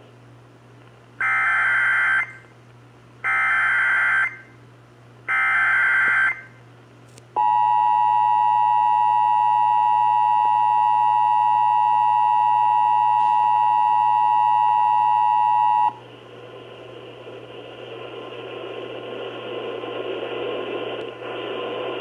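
Emergency Alert System tones from an AM radio's speaker: three one-second bursts of buzzy SAME header data, then the steady two-tone EAS attention signal for about eight and a half seconds, which cuts off suddenly. A hiss of AM static follows and slowly grows louder.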